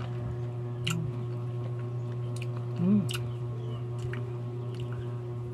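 Eating sounds as a spoon scoops ripe mango flesh: a few soft scrapes and sharp mouth clicks over a steady low hum, with a brief low hum about three seconds in.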